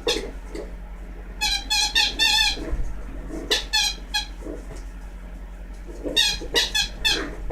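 A puppy chewing a squeaky dog toy, setting off its squeaker in three bursts of short, high, wavering squeaks, with quieter chewing and rustling between them.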